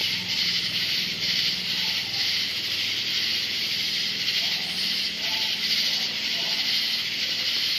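Chorus of night insects: a steady, high-pitched shrill with a slight pulse.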